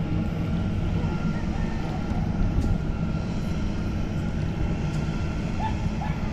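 A steady low motor drone, an even hum that doesn't change. A few short high chirps come through about five and a half seconds in.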